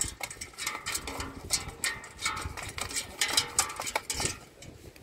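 A fish being unhooked inside a stainless steel bin: irregular metallic clicks and taps as the hook, tool and fish knock against the steel, some with a short ring.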